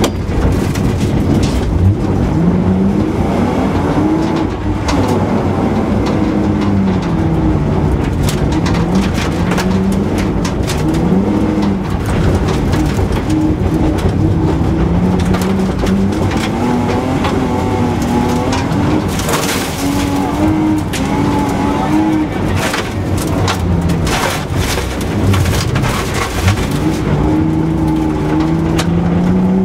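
Rally car engine heard from inside the cabin at speed on gravel, revving up and dropping again and again through gear changes and lifts, with frequent sharp clicks and knocks of gravel against the car.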